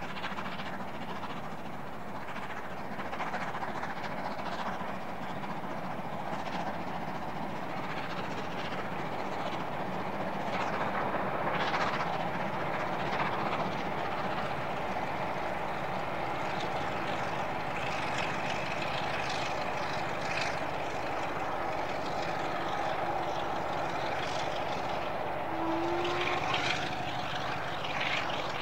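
Steam-hauled excursion train running past: a steady rumble and rush with irregular knocks from the wheels and carriages, heaviest about a third of the way in and again near the end.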